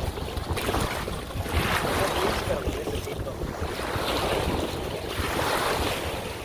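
Wind buffeting the microphone in a steady low rumble, with the wash of choppy lake water swelling and fading a few times.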